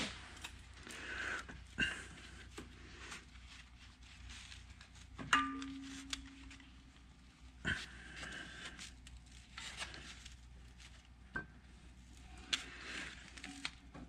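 Faint, scattered clinks and knocks of hand tools on metal as nuts and bolts are worked loose on a backhoe engine, with a few heavy breaths in between.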